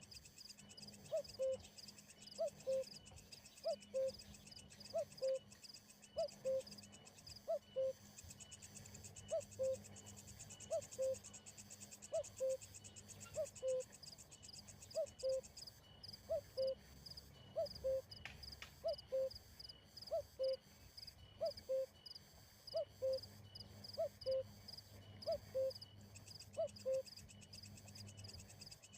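Low two-note animal calls repeated at a steady pace, about one pair every second and a half, over a steady high buzz of insects.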